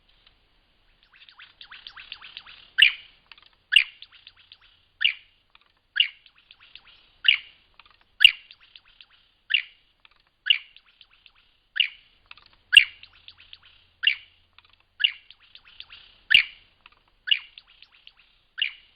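A bird singing: soft twittering starts about a second in, then a loud, sharp note repeats about once a second with quieter chattering between the notes.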